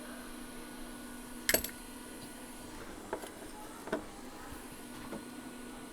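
Hot air rework station blowing with a steady hum and hiss, used to heat the board, with a few light clicks of tools on the board, the sharpest about a second and a half in. The hum cuts off right at the end.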